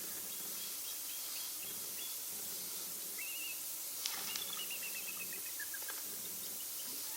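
Hooded merganser drakes calling over a steady hiss, with thin high chirping notes in short falling runs and a sharp click about four seconds in.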